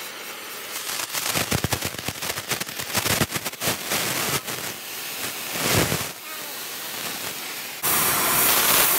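Gas torch heating a bend in the steel tube: irregular crackling and popping, then a loud steady hiss near the end that cuts off suddenly.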